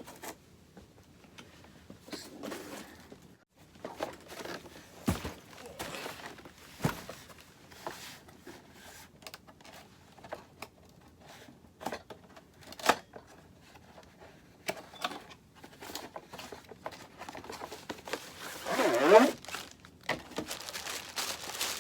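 Packaging being handled while a ring light is unboxed: crinkling and rustling with scattered light knocks and clicks, and a louder scraping rip near the end.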